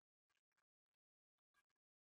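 Near silence: the sound drops out almost entirely between her remarks.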